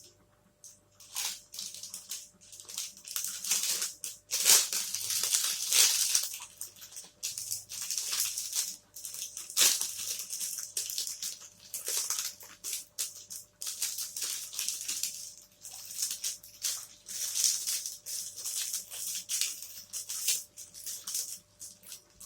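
Close-miked eating sounds: a person chewing with irregular crunching and crackling noises.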